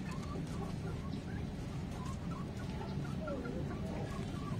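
Chickens clucking faintly in short, scattered calls over a low steady rumble.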